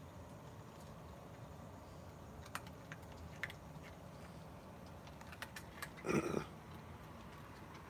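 Raccoons eating dry kibble: scattered small crunching clicks, with one short, louder sound about six seconds in.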